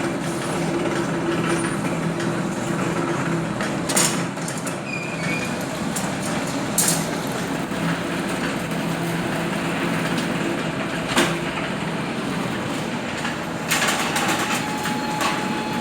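CNC ring making machine bending 8 mm wire into rings, running with a steady motor hum and mechanical noise, broken by a few sharp metallic knocks.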